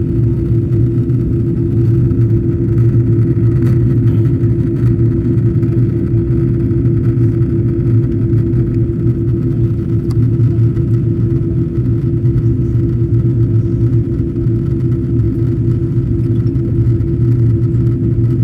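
Steady in-flight cabin noise of an Airbus A330: a loud, even drone of engines and airflow with a steady low hum, heard from a passenger seat inside the cabin.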